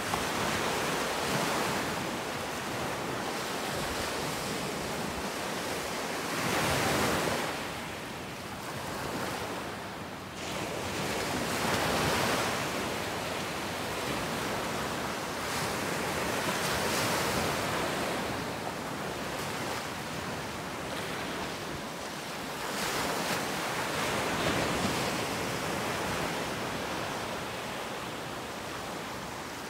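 Ocean surf: waves breaking and washing up the shore over a steady rush of water, swelling and falling away with a new wave every five seconds or so.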